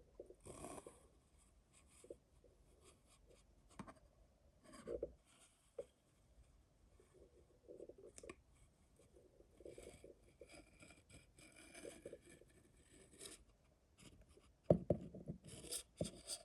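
Faint handling sounds of a kitchen knife being picked up, turned over and examined: scattered light clicks, knocks and rubs. The loudest knocks come near the end.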